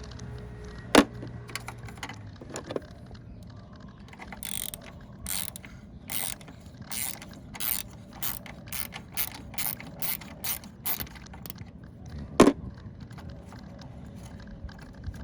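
Ratchet wrench worked in short strokes, a burst of ratchet clicks about twice a second through the middle stretch, as bolts on an engine-bay part are loosened. Two sharp metallic knocks, about a second in and near the end, are the loudest sounds.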